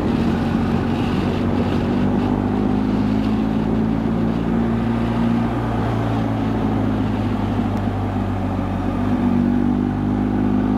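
BMW R1250 GS Adventure's boxer-twin engine running steadily at road speed, with wind and road noise. The engine note sags slightly past the middle and picks up again near the end.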